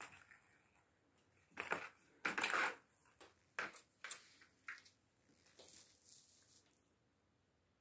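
Plastic ball rattling and rolling in a circular plastic cat track toy as a cat bats it, with sharp knocks of ball and paw against the plastic track. Two loud clattering bursts early on, then a few single clicks and a softer stretch of rolling.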